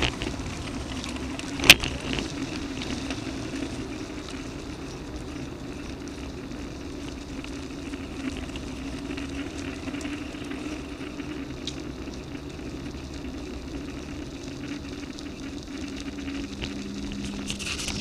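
Bicycle rolling over rough, potholed asphalt: a steady rumble of tyre and frame noise, with one sharp knock just under two seconds in and a few lighter clicks near the end.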